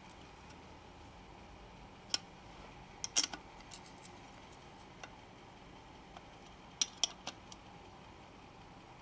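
A few short metal clinks of a wrench against the nuts of a camshaft bearing cap, the loudest cluster a little after three seconds in and three more near seven seconds.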